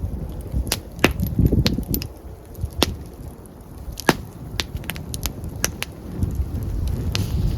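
Open wood campfire crackling: irregular sharp pops and snaps of burning wood, roughly one or two a second, over a low rumble.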